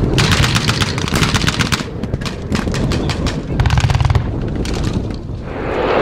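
Rapid blank gunfire from rifles and machine guns: a long run of quick shots for about the first two seconds, then shorter, sparser bursts over a low rumble. A propeller aircraft's engine rises in from about five seconds in.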